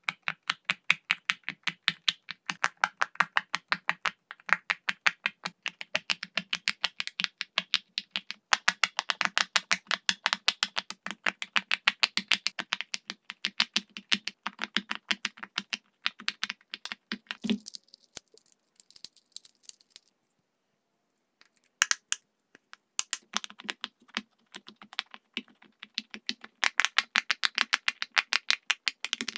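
Silicone pop-it fidget toy bubbles being pressed in a rapid, even run of soft pops, several a second, stopping for a second or two about two-thirds through before starting again.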